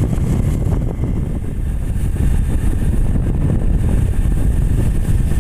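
Hero Glamour single-cylinder motorcycle riding along at a steady speed: a steady low rumble of the engine and wind buffeting the microphone.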